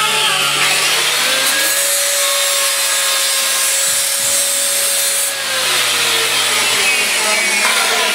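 Power tool grinding sheet steel with a loud, continuous rasp. Its motor tone rises about a second in, holds steady, then falls away around five seconds in. Background music plays faintly underneath.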